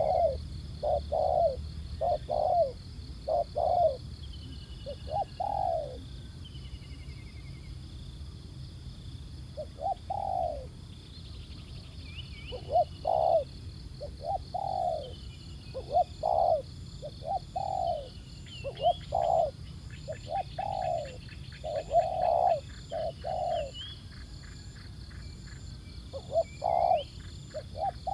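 Spotted doves cooing in short phrases of a few coos each, with a long pause partway through. Small birds chirp faintly higher up over a steady insect drone.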